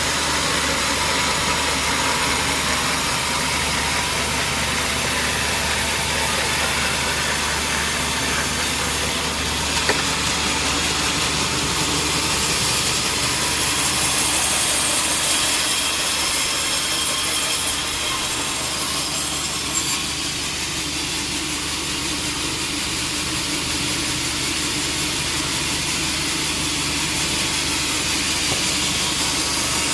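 Sawmill machinery running steadily with a constant noisy hum. A brighter, higher hiss comes in for a few seconds around the middle, and there are two brief sharp knocks, about ten and twenty seconds in.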